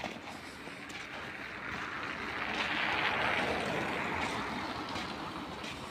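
A vehicle passing by: a rushing noise that swells to a peak about halfway through, then fades away.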